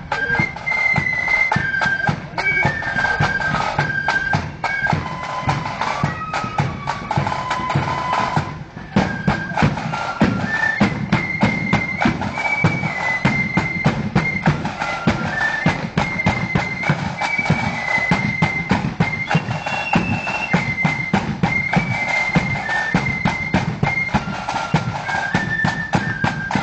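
Marching band playing a tune: a high, stepping melody line over dense, steady drumming. The melody breaks off briefly about eight seconds in, then starts again.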